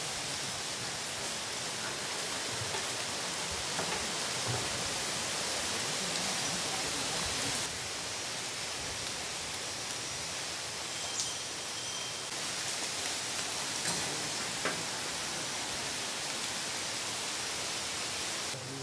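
Steady hiss-like outdoor background noise, stepping slightly in level about 8 and 12 seconds in, with a few faint ticks.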